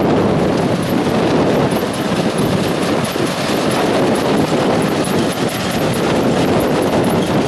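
Combine harvester running at a standstill with its bean header and threshing machinery engaged, giving a steady, loud mechanical clatter with a fast, even ticking about four times a second.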